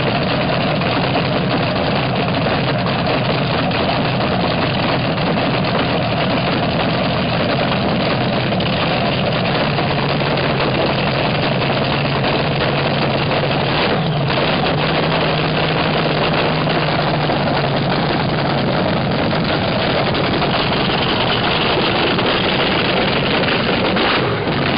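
Supercharged nitro-burning V8 of a vintage front-engine dragster running steadily at idle. Its note steps up slightly about halfway through.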